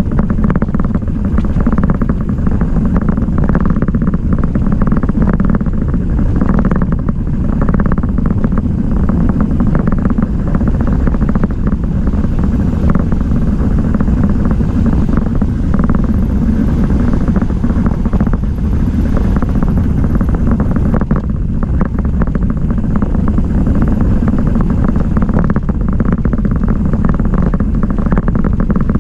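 Steady rush of wind on the microphone mixed with the rumble of mountain bike tyres rolling on rough asphalt while riding.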